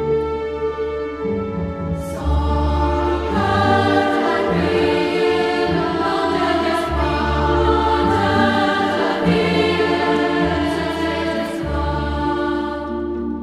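Film-score music: a choir sings sustained chords over a low orchestral bass line whose notes change every second or so. It swells fuller about two seconds in.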